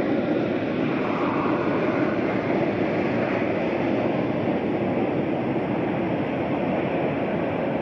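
Jet engines of a WestJet Boeing 787-9 Dreamliner climbing out after takeoff: a steady rumbling noise that fades slightly toward the end.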